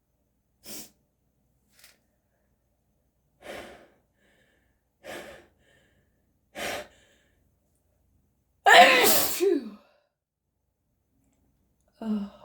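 A person's sneeze: a run of short, sharp in-breaths about every second and a half, each a little louder, then one loud sneeze with the voice sliding in pitch about nine seconds in. A short voiced breath follows near the end.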